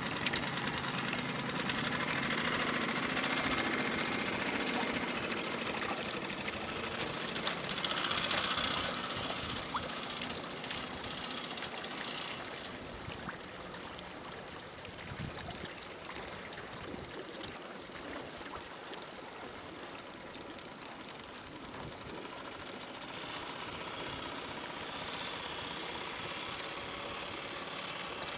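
Small Mercury four-stroke outboard motor running steadily, pushing a canoe across the water, heard up close with a constant hiss of water and air. About twelve seconds in it drops quieter and farther off as the canoe is heard from a distance.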